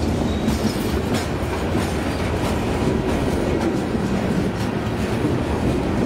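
Boeing 747's four jet engines at takeoff thrust as the jet lifts off and climbs: a steady, loud low rumble with crackling.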